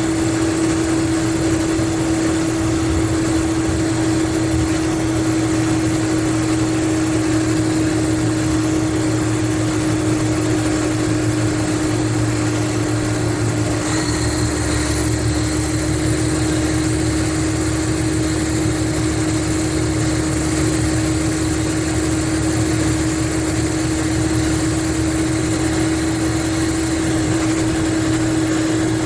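Mercedes-Benz O500RSD coach's diesel engine running steadily, with a constant droning hum over its low rumble. The rumble changes pitch once, about halfway through.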